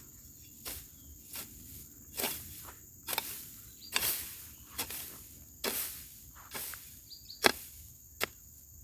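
Long-handled garden hoe striking and scraping into dry soil and leaf litter, about ten chops a little more than one a second, as ground is broken up for planting lemongrass. A steady high buzz of insects runs underneath.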